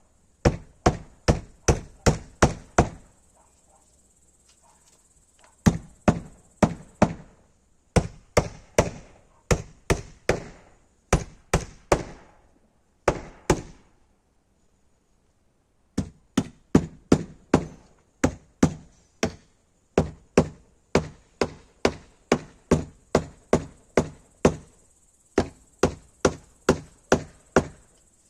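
Hammer driving small nails into an old door: quick runs of sharp blows, about two or three a second, broken by a few short pauses.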